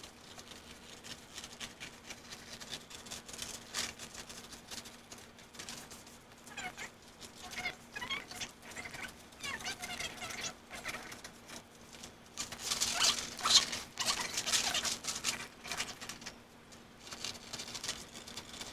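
Scissors snipping through large sheets of brown pattern paper, with the paper rustling and crackling as it is cut and handled; the rustling is busiest about two-thirds of the way through. A faint steady hum lies underneath.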